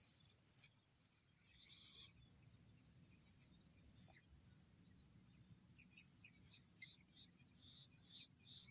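Insects trilling in a steady, high-pitched chorus that grows louder about a second and a half in, with a few short higher chirps near the end.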